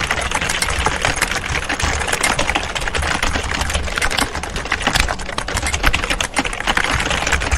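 Many people typing at once on computer keyboards: a dense, continuous clatter of overlapping key clicks with a low hum underneath.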